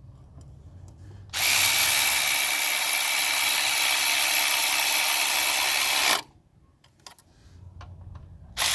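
Power tool running steadily for about five seconds, driving in a water pump bolt, then cutting off abruptly; another short burst starts near the end.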